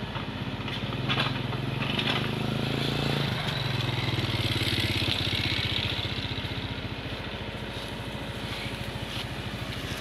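Case 580K backhoe's diesel engine running as it works, louder from about a second in until about six seconds, then settling to a steady run. A small motorcycle's engine passes close by near the start.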